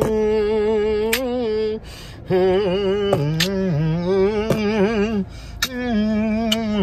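A man humming a wordless tune of his own, in long held notes with a wavering pitch, breaking off twice briefly, with a few sharp clicks along the way.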